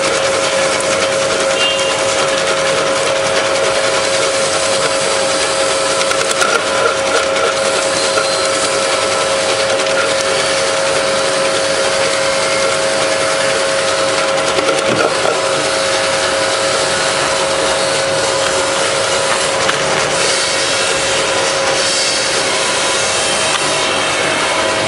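Pistachio slicing machine running: a steady motor hum with a continuous scraping and rasping as the nuts are cut into thin slivers.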